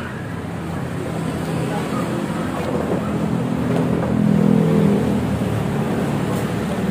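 Road traffic noise: a motor vehicle's engine running past, swelling about four to five seconds in and then easing off.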